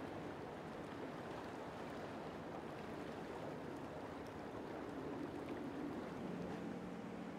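Steady rush of water and wind off the harbour, with a boat engine's low steady hum coming in about six seconds in.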